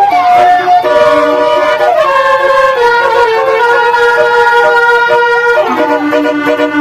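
Bus 'basuri' telolet horn, a set of musical air horns on a bus, playing a tune in sustained chords. The notes step to new pitches every second or so, with one chord held for about three seconds before dropping lower near the end.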